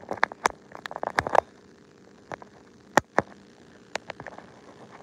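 Fingers tapping and handling a phone held close to its own microphone: a quick run of sharp clicks and taps in the first second and a half, then a few scattered single taps.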